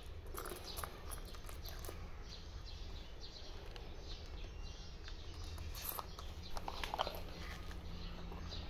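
Faint clicks and clinks of coins being fished out of a small leather coin purse, over a steady low rumble. A louder short sound comes about seven seconds in.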